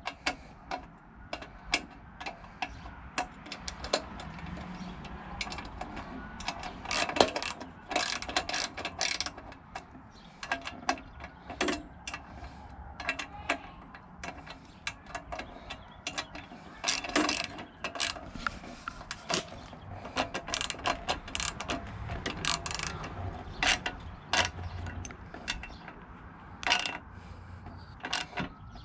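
Ratchet wrench clicking in short irregular runs while bolts are tightened.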